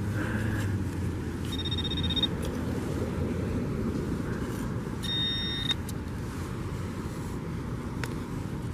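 Metal detector beeping on a buried target: two short, high, buzzing beeps, one about two seconds in and another about five seconds in. Underneath, a gloved hand brushes through sand over a steady low rumble.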